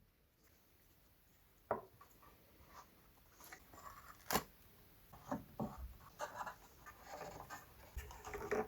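Small wooden bandsaw-box pieces being handled and fitted back together during glue-up: scattered light knocks and taps of wood on wood, with short scraping and rubbing sounds in between. A sharp tap stands out about four seconds in.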